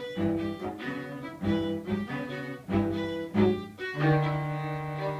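String quartet playing a short, rhythmic passage of detached chords, then sustaining one long bowed chord from about four seconds in.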